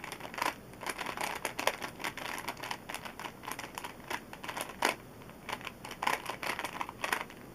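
An original Rubik's Cube, lubricated with Maru Lube, being scrambled by hand: its plastic layers turn in quick, irregular clicks and rattles.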